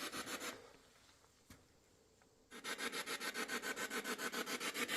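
Ghost-hunting spirit box sweeping through white noise: rapid, even pulses of static at about six a second. The pulsing cuts out about half a second in, one faint click follows a second later, and the pulsing starts again about two and a half seconds in.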